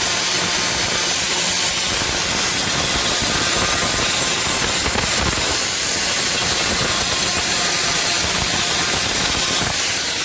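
Power grinder running steadily against a plastic car bumper, grinding down the welded repair seams with a loud rushing hiss and a thin high whine. Near the end the tool is switched off and its whine falls as it spins down.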